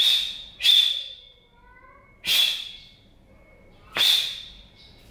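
Four sharp hissing bursts from a taekwondo student's pattern techniques, one with each fast block or strike, two close together at the start, then one about two seconds in and one near the end; each fades within about half a second.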